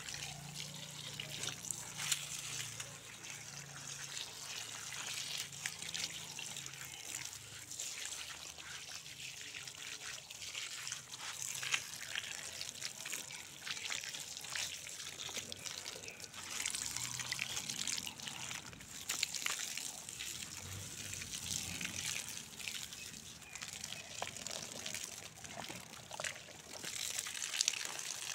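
Water running from a garden hose, trickling and splashing onto soil and plants as they are watered.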